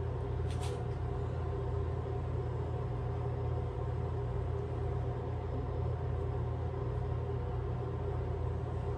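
Ventilation fan running with a steady low hum that does not change; a couple of faint ticks about half a second in.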